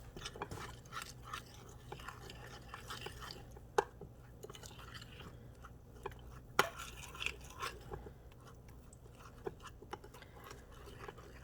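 Flour and water being stirred into a thick batter in a bowl: faint, irregular scraping and soft clicks of the utensil, with two sharper clicks about four and six and a half seconds in.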